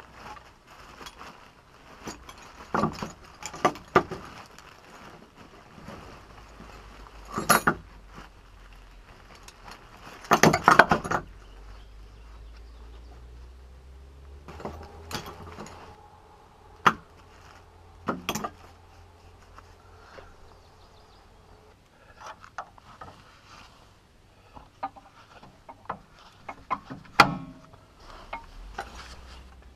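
Scattered clinks and knocks of metal hand tools being picked up and handled, with a few short bursts of rustling.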